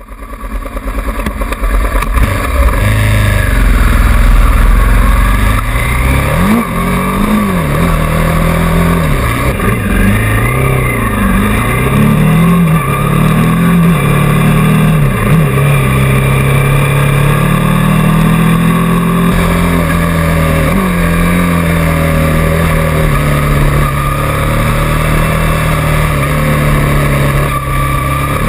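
Honda VTR's V-twin engine heard on board while riding, with wind rushing over the microphone. The revs rise and drop again and again in the first half, then hold steady at a cruise.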